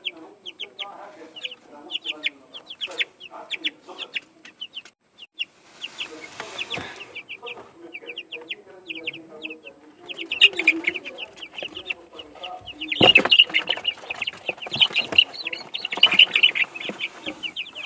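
A brood of 13-day-old chicks peeping continuously in short, high, falling chirps. The peeping gets louder and denser about ten seconds in as a hand reaches in among them, with a brief rustle of wood-shaving bedding partway through and a sharp knock about thirteen seconds in.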